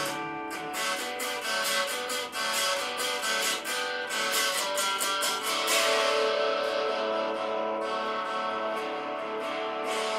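Instrumental guitar break in a song: quickly picked guitar notes for about six seconds, then held, ringing chords.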